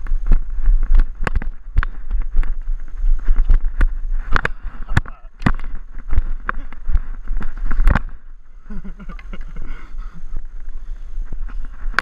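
Handling noise from a GoPro camera being picked up and moved: many irregular sharp knocks and rubs over a low rumble. After about eight seconds it is quieter, with faint voices.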